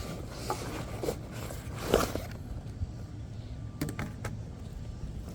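Handling noise: soft rustling with a few light clicks and knocks, spread unevenly, as the backpack and its gear are handled near the microphone.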